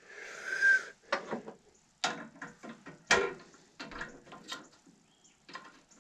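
Drill-press chuck being worked by hand with a chuck key to swap the drill bit for a countersink. A brief scraping rustle at the start, then a run of irregular metal clicks and rattles.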